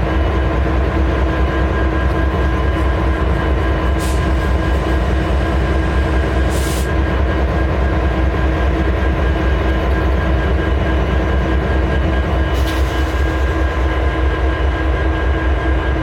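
Two diesel-electric freight locomotives idling, an EMD SD70MACe's 710-G3B prime mover and a GE CM44AH, giving a low, pulsing drone with steady whining tones above it. Short hisses come about four seconds in, near seven seconds and near thirteen seconds.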